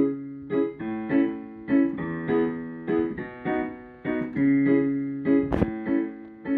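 Piano playing the song's introduction: a run of struck notes and chords, each dying away before the next, with a short sharp click about five and a half seconds in.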